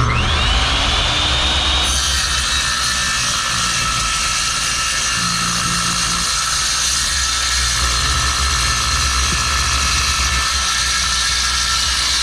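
Skil worm-drive circular saw with a Diablo Steel Demon metal-cutting blade spinning up with a rising whine. About two seconds in the blade bites into quarter-inch steel plate, and the saw then cuts steadily through it with a high, ringing noise.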